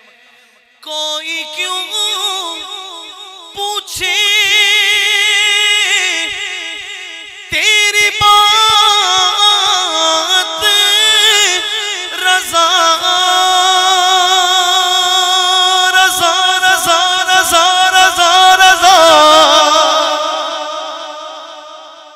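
A man singing an Urdu naat into a microphone: long, drawn-out, high notes with a wavering vibrato, with no words clearly sung. The voice starts about a second in, grows loudest in the middle and fades out near the end.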